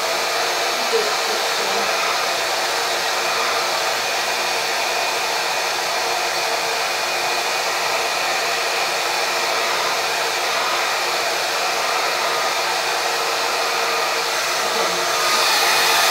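Handheld hair dryer running steadily: a continuous rush of blown air with a faint motor whine. It gets a little louder and brighter about a second before the end.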